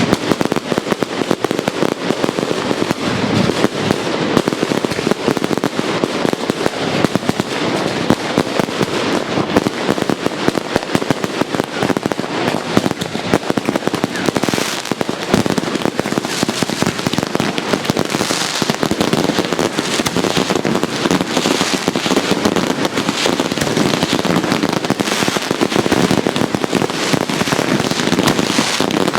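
Fireworks going off in a dense, unbroken barrage of rapid crackles and bangs.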